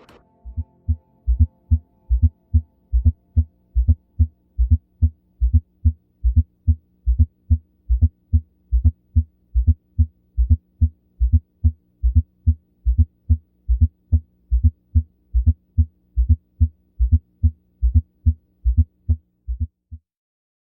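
Auscultation recording of heart sounds with a fourth heart sound (S4), an extra low presystolic tone just before the first heart sound. The result is a regular series of short, low thuds, about two to three a second, over a faint steady hum, and it stops shortly before the end. A pathological S4 is the sign of a stiff ventricular wall, as in myocardial hypertrophy or ischaemia.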